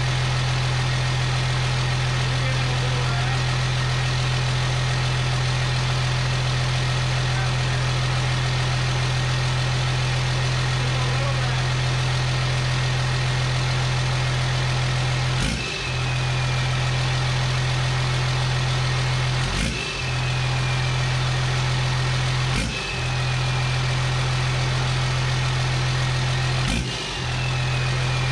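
12-valve Cummins 5.9-litre inline-six diesel running steadily at idle on its first start after a new fuel system was fitted. In the second half its sound dips briefly four times, about every four seconds.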